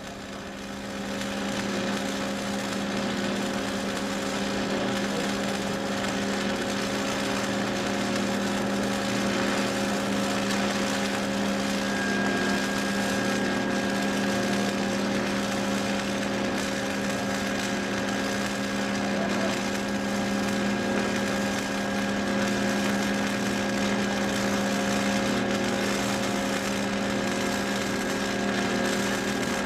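Stick (shielded metal arc) welding overhead with a 7018 electrode: the arc burns with a steady hissing noise over a low, even hum. It builds up over the first couple of seconds and stops abruptly at the end.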